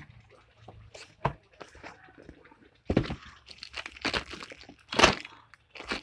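Irregular rustling, crinkling and a few knocks from handling: a phone moved about over cloth and cardboard.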